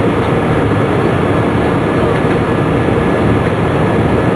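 Steady jet engine and airflow noise inside an airliner cabin during the climb after takeoff.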